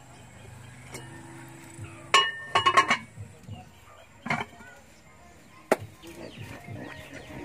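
Metal pot lid clinking against a metal cooking pot as it is set on: a quick cluster of ringing clinks about two to three seconds in, then single clinks at about four and a half and just under six seconds.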